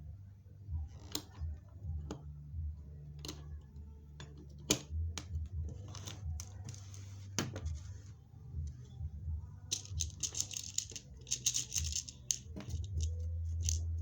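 Bead rivet machine clicking and tapping irregularly as pearl beads are pinned into chiffon, with two stretches of rustling handling noise and a steady low hum beneath.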